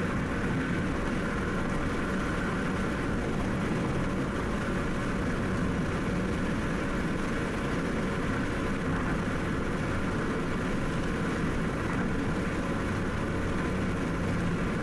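Steady road and engine noise inside a car's cabin at highway speed, a continuous low rumble of tyres and engine with no change in pace.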